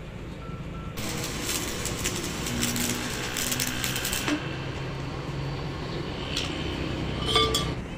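Electric arc welding on a steel truck rear axle housing: the arc crackles and sizzles for about three seconds starting a second in, then stops. A short clink of metal comes near the end.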